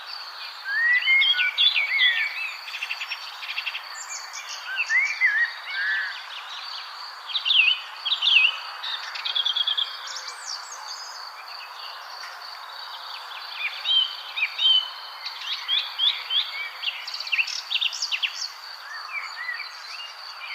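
Several songbirds chirping and twittering in quick bursts, with a lull a little past the middle, over a steady high insect trill and a soft even hiss.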